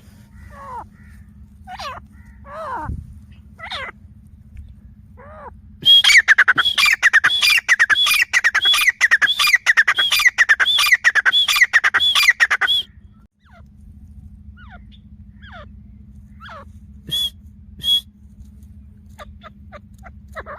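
Grey francolin calling: a loud, rapid run of repeated ringing notes lasting about seven seconds in the middle, with scattered softer falling notes before it and two short notes near the end. A faint steady low hum runs underneath.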